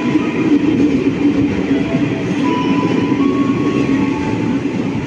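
Electric commuter train cars rolling slowly alongside the platform as the train comes in to stop, a steady rumble of wheels on rail. Thin high tones sound over it at the start and again, a little higher, about halfway through.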